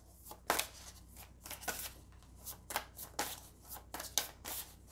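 A deck of oracle cards being handled and shuffled by hand: a run of short card slaps and flicks, about three to four a second.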